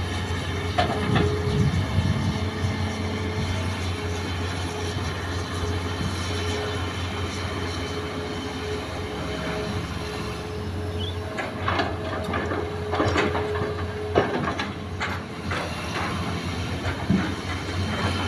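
Hitachi hydraulic excavator's diesel engine running steadily under load with a steady hydraulic whine as the machine swings and digs. A run of knocks and scrapes comes about two-thirds of the way through as the bucket digs into the soil.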